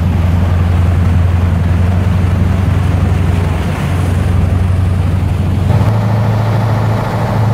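Bumboat's diesel engine running under way with a steady low drone, over the rush of the churning propeller wash; the drone steps slightly higher about six seconds in.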